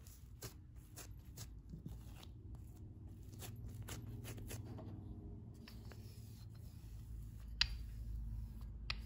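Close-up kitchen handling sounds of bread dough being worked on a surface: a run of light clicks about twice a second, then rubbing over a low rumble, with a sharp click near the end.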